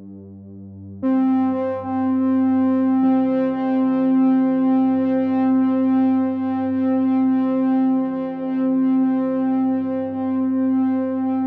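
Background music: a held synthesizer chord that gets louder and brighter about a second in and then sustains.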